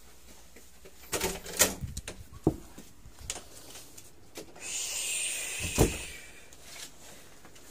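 A few scattered knocks and clicks. About five seconds in comes a short hissing rush that ends in a sharper knock.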